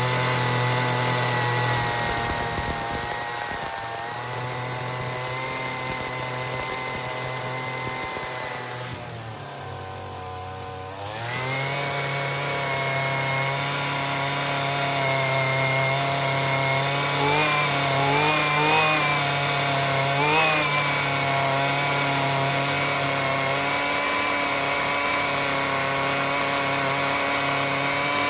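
Husqvarna string trimmer's small two-stroke engine running steadily during carburettor adjustment. About nine seconds in its pitch sags and it goes quieter, then it picks back up about two seconds later, with a few brief wavers in pitch later on.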